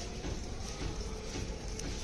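A few faint knocks and scrapes of a PVC weight plate being worked onto a steel barbell rod, over a steady low background rumble.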